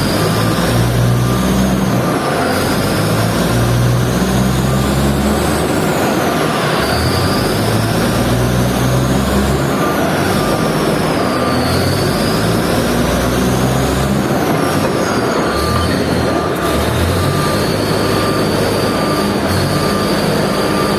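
Heavy diesel machinery running loud and steady, its low rumble rising and falling, with a rapidly repeating high beeping alarm and high squealing tones that slowly rise and fall.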